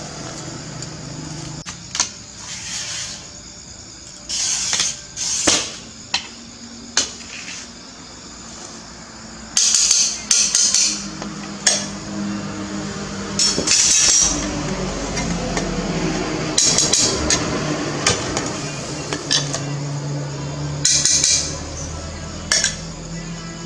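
Glass being worked with a hand glass cutter: a series of short scratchy strokes across the pane, with sharp clinks and taps of glass between them.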